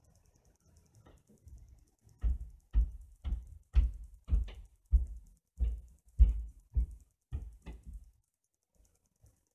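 A series of about a dozen dull thumps, roughly two a second, starting about two seconds in and stopping near the end.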